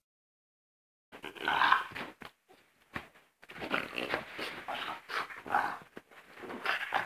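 French bulldog puppies play-fighting, giving short rough growls and grunts in bursts with brief pauses, starting about a second in.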